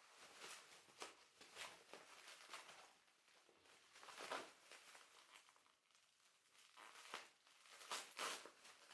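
Faint, irregular crinkling and rustling of packaging being handled, in short scattered bursts, a few louder ones about four seconds in and near the end.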